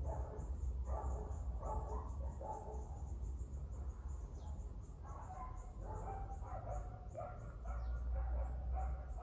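A dog barking in a run of short, repeated calls, closer together in the second half.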